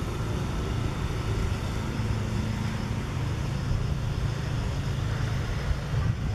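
Motor vehicle engine running steadily, a low even hum.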